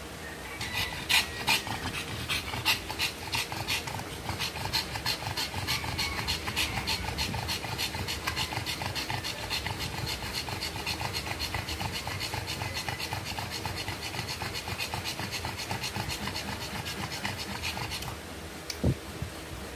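A pug bitch in the middle of whelping panting rapidly and steadily, about three breaths a second, starting about a second in and stopping near the end.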